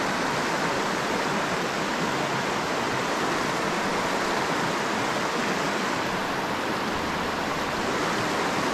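Rocky stream rushing steadily over a shallow riffle, an even white-water hiss.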